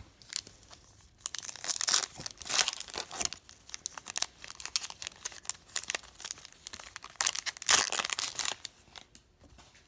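Foil trading-card pack wrapper being torn open and crinkled by hand as the cards are pulled out: irregular crackling and tearing in bursts, loudest about two seconds in and again near the end.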